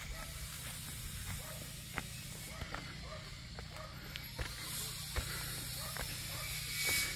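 Quiet outdoor ambience over a steady low rumble, with scattered soft clicks and steps as someone walks across grass. A brief louder hiss swells near the end.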